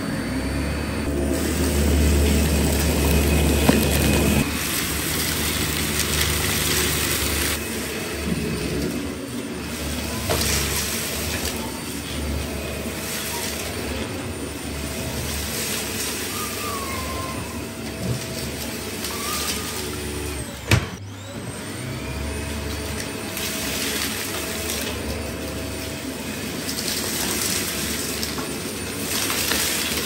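Dyson Ball Animal upright vacuum cleaner running steadily, its brush bar pushed back and forth over carpet as it sucks up loose dirt, with a brief dip in the noise about two-thirds of the way through.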